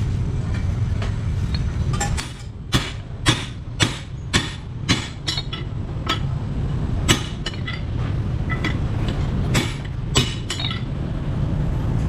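Sharp metal taps and clinks of tools on motorcycle engine parts during crankshaft connecting-rod work: a run of about two a second some three seconds in, then a few single ones, over a steady low rumble.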